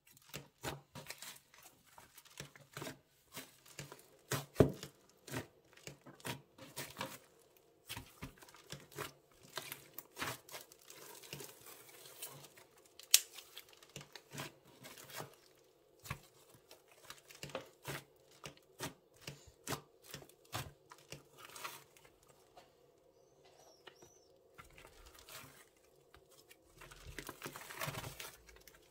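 Hands working slime: sticky tearing and crackling as it is stretched and squeezed, in quick irregular snaps. It quietens for a few seconds, then a louder crinkling burst comes near the end.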